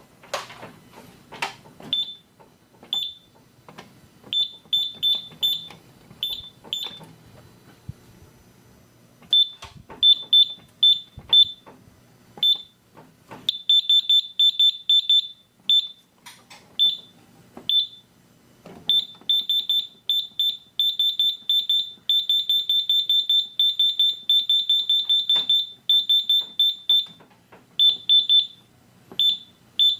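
Simplex 4100U fire alarm panel's keypad giving short high-pitched beeps as buttons are pressed, in irregular runs from single beeps to fast strings as keys are pressed in quick succession, with button clicks among them.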